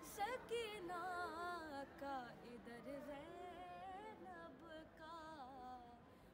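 A boy's unaccompanied voice chanting an Urdu noha, a mourning lament, in long wavering notes that bend up and down.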